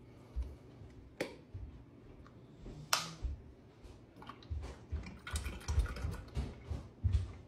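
A few sharp clicks while the plastic spout of a heavy cream carton is handled. Then, from about four and a half seconds in, the cream glugs out of the carton in quick low pulses into the food processor bowl.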